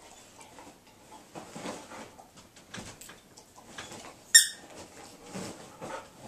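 A labradoodle digging and pawing at bedding on a bed: soft rustling and scuffing of the fabric, with one short, sharp high squeak about four seconds in, the loudest sound.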